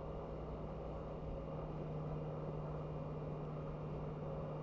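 Steady low drone of vehicles and road noise at highway speed, with an unchanging low hum.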